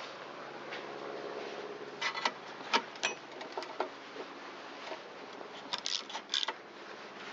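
Scattered metallic clicks and knocks from hand tools and engine parts being handled during reassembly, with a few sharper knocks about two to three seconds in and again near six seconds, over a steady low hum.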